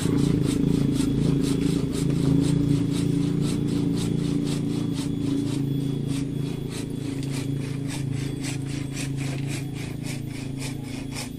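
Hand saw cutting through an avocado branch in quick, even rasping strokes, about three a second, stopping near the end. Under it a steady engine hum runs and slowly fades.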